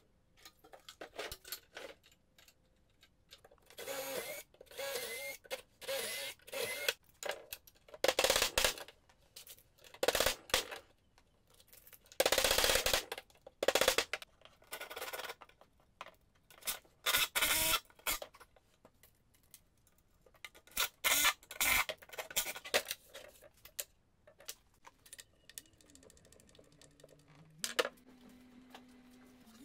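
Irregular knocks, clicks and clatter, some short and sharp, others lasting up to about a second, with a low steady hum coming in near the end.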